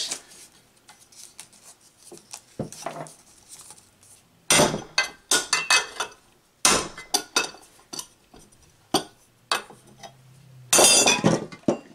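A hammer striking a chisel wedged in the seam between an electric motor's end cover and its housing: a run of sharp, ringing metal-on-metal taps at irregular spacing, driving the end cover off. Quieter handling sounds come first, and a denser metallic clatter follows near the end.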